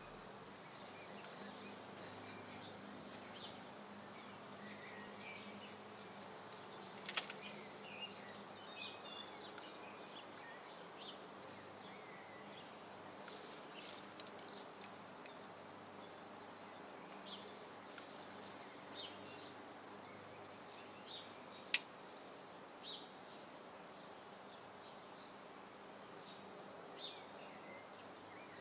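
Faint outdoor ambience: a steady, rapidly pulsing high buzz, scattered short chirps and a low background hum, with two sharp clicks, one about a quarter of the way in and one about three quarters in.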